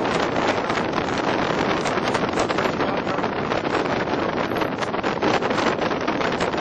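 Wind rushing over and buffeting the microphone in the open bed of a moving pickup truck, a steady flickering rush with the truck's road noise beneath it.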